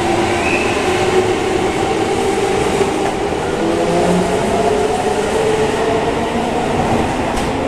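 Chiba New Town Railway 9000 series subway train pulling out of an underground platform. Its motor whine climbs slowly in pitch as it accelerates, over a steady rumble of the wheels and the passing cars.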